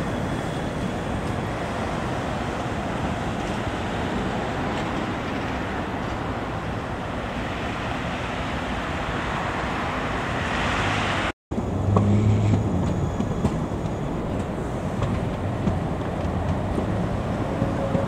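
Tram running on its rails: a steady rumble of wheels on track. It breaks off suddenly about eleven seconds in and resumes with a deeper hum.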